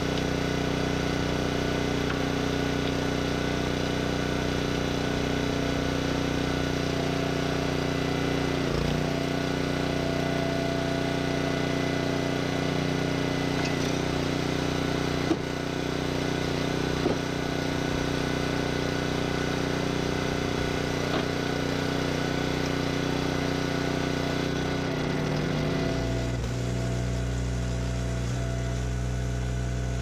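Small gas engine of a hydraulic log splitter running steadily while firewood rounds are split. There is a brief dip in the engine note about nine seconds in and a couple of sharp cracks in the middle. The engine settles into a lower, heavier tone near the end.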